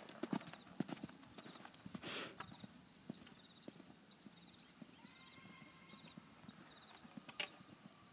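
A horse's hooves cantering on sand-and-gravel arena footing, the hoofbeats loud at first, then fainter as the horse moves off. A short rush of noise comes about two seconds in.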